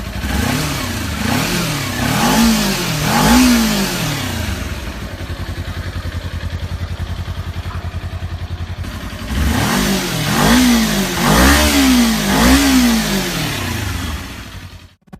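Kawasaki Ninja 250 parallel-twin engine blipped through its exhaust: four quick revs that rise and fall, several seconds of idling, then four more revs. The sound cuts off abruptly near the end.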